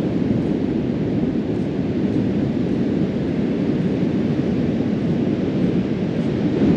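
A steady, low rumbling noise with no distinct events.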